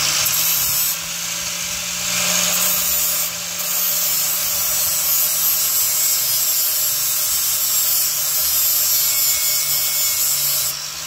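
Welding on the steel front end of a 1951 Ford custom: a steady, harsh hiss that dips briefly about one second and about three seconds in.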